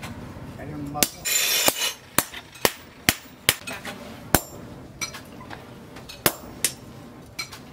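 Hammer blows on a red-hot steel knife blade resting on a steel anvil: sharp, ringing metal-on-metal strikes about twice a second, with a short burst of hiss about a second in.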